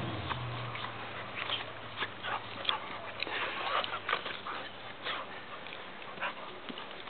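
Two dogs play-wrestling, giving short high yips and whimpers, most of them between about two and five seconds in.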